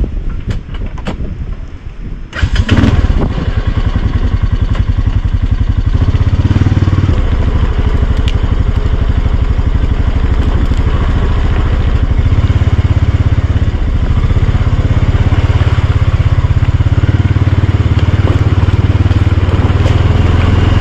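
ATV engine running quietly, then opening up sharply about two seconds in as the machine pulls away. It then runs steadily under throttle, rising and easing a few times as the quad is ridden along.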